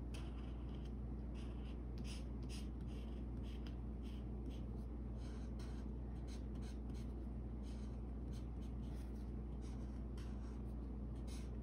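Felt-tip marker scratching across paper in many short, quick strokes, drawing small branches. A steady low hum runs underneath.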